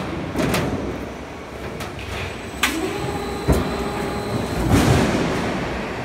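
Roll forming machine and workshop noise: a steady mechanical rumble with a couple of sharp metal knocks and a whine that rises, holds for about two seconds and falls away.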